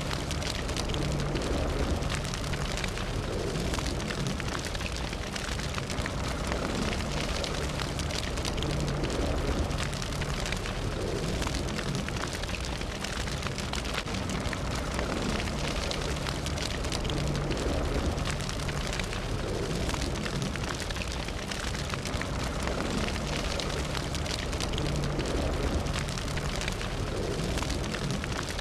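Fire burning: a steady rushing of flames with dense crackling and popping.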